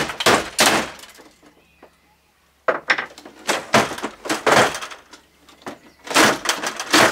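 The plastic scanner lid and case of an Epson all-in-one inkjet printer being bashed and wrenched apart: repeated sharp cracks and bangs of plastic breaking, in three bursts with a short lull after the first second or so. The lid is still tethered by a ribbon cable in its hinge.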